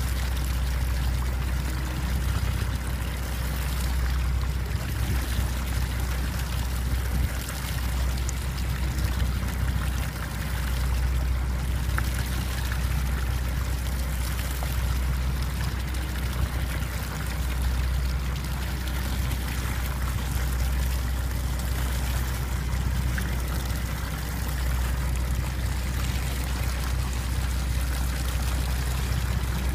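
A boat's engine running with a steady low hum, under a continuous wash of sea water rushing and splashing against the hull.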